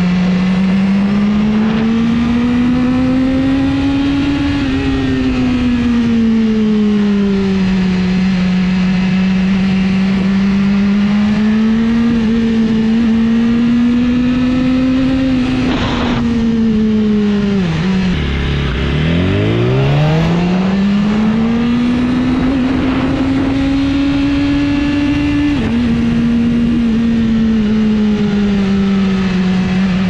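BMW S1000RR's inline-four engine running under way, its pitch rising and falling with the throttle, with a couple of sudden small drops in pitch. A little over halfway through the revs fall right down as the bike slows, then climb again as it pulls away.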